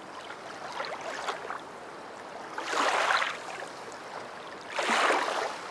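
Rushing water noise, like waves, swelling and fading about every two seconds over a steady hiss.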